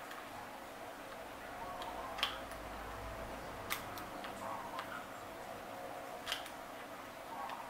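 Sharp little clicks and ticks of small metal parts and tools while an Okuma Komodo baitcasting reel is being taken apart, three louder clicks a couple of seconds apart, over a faint steady hum.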